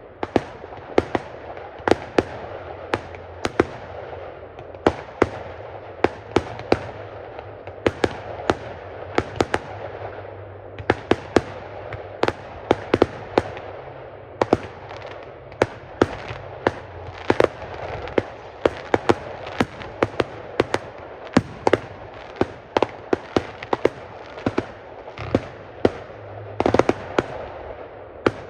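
Fireworks display: a rapid, irregular run of sharp bangs, often two or three a second, with a steady noise between them.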